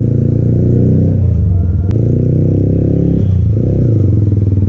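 Yamaha MT-15's single-cylinder four-stroke engine through an aftermarket Akrapovic exhaust, riding in second gear at low speed. The revs drop and pick up again twice as the throttle is closed and reopened, with one short sharp click about two seconds in.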